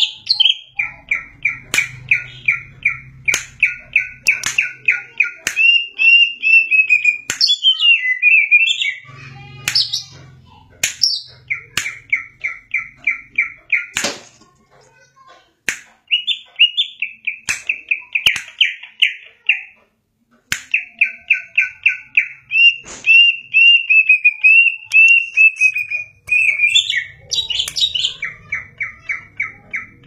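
Caged greater green leafbird (cucak ijo) singing vigorously: long runs of rapid sharp notes, several a second, broken by sliding whistled phrases, with short pauses between bouts. A few sharp clicks are scattered through the song.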